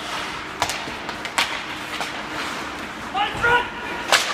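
Ice hockey play in a rink: three sharp clacks of sticks and puck, with a short shout from a player about three seconds in.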